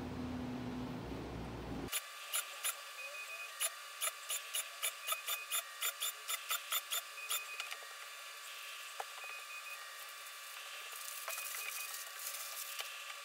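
Cordless drill running and boring through a paper template into a board, with one short pause. About two seconds in the sound cuts to a thin, filtered track: a run of sharp clicks, about three a second, over a steady high tone with short beeps. The clicks stop about seven seconds in.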